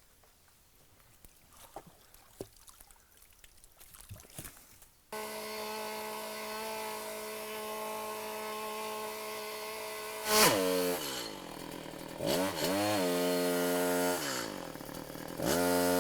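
Small chainsaw idling, then revved up and let back down several times. Before it starts there are a few faint knocks.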